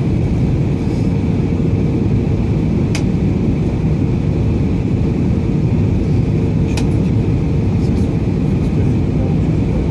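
Steady roar of an Airbus A320 heard from inside the passenger cabin while descending on approach: engine and airflow noise with a steady hum under it. Two brief clicks, about three and seven seconds in.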